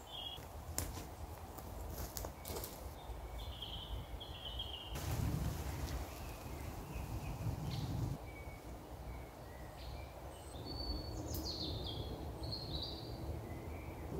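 Woodland ambience: small birds chirping and singing over a low wind rumble, with a few light clicks in the first seconds and a stretch of rustling about five seconds in that lasts some three seconds.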